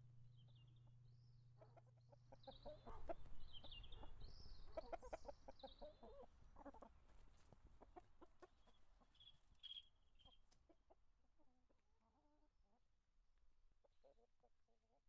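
A hen clucking in quick runs of short notes, with small birds chirping high above; the sound starts about two and a half seconds in and fades toward the end. A low steady hum is heard for the first couple of seconds.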